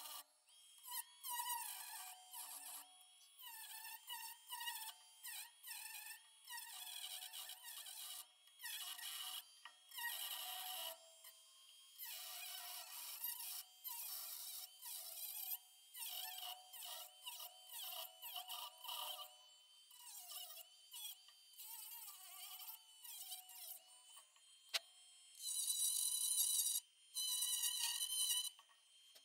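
Handheld rotary tool with a small cut-off wheel whining at high speed as it cuts into the wooden end of a hammer handle. It runs in short repeated bursts, its pitch dipping and recovering as the wheel is pressed into the wood and eased off.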